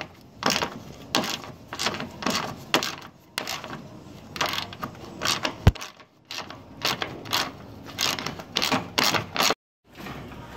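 Hand ratchet and socket turning a nut on a Honda Civic's radiator mounting bracket: short bursts of pawl clicking, about one or two a second, with one sharp knock a little past halfway.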